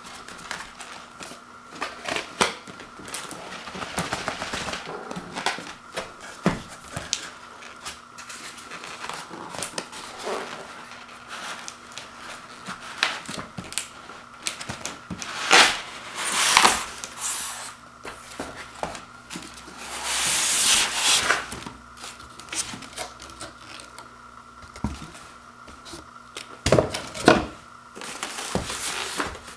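Cardboard box flaps and foam packaging being handled: irregular rustling, sliding and scraping, with a few longer, louder scrapes around the middle and near the end, over a faint steady hum.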